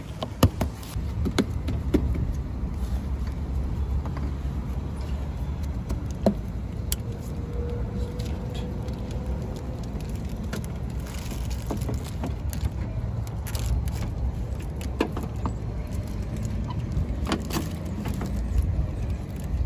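Plastic headlight housing being handled and fitted into place: scattered clicks and knocks of plastic parts and rustling of a plastic bag, over a steady low rumble.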